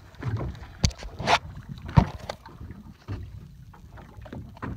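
Water lapping against a small boat's hull with wind on the microphone, broken by a few irregular knocks and thumps, the loudest about two seconds in.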